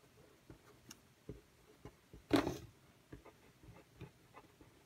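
Permanent marker writing on paper: quiet, irregular ticks and scratches of the felt tip as letters are formed, with one louder brief swish about halfway through.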